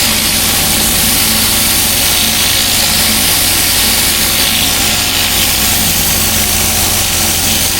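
Engine-driven pressure washer running steadily, its high-pressure water jet hissing as it cleans block paving.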